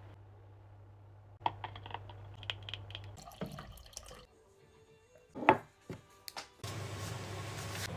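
Water running from a dispenser spout into a glass, after a run of light clicks, with one short louder sound about five and a half seconds in.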